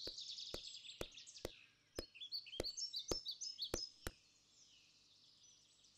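Faint footsteps, sharp and regular at about two a second, with small birds chirping. Both stop abruptly a little after four seconds in, leaving silence.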